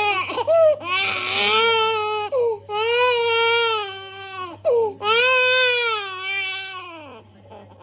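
Young child crying hard in long drawn-out wails, about three of them with gasps for breath between, the last one tailing off near the end: distress at being massaged for a cough and cold.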